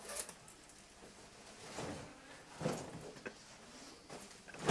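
Faint rustling of a jacket being handled and adjusted, with a few soft, short knocks.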